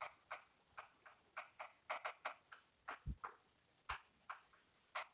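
Chalk writing on a chalkboard: a run of faint, irregular short clicks as the strokes are made, with two low knocks about three and four seconds in.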